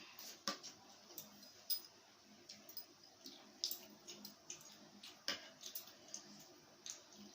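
Eating sounds at a meal: faint, scattered clicks and wet smacks of chewing and of food being handled on a plate, a dozen or so irregular ones.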